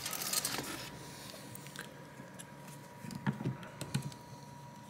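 Small clicks and taps of a precision screwdriver and fingers working small Phillips screws on a rugged phone's plastic mid-frame, after a brief rustle of handling at the start. A faint steady high tone runs underneath from about a second in.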